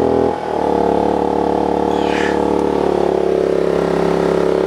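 Sportsman GEN3500i inverter generator's 149.5 cc engine running revved high under its full 3000-watt load, extremely loud. Its pitch shifts briefly about a third of a second in.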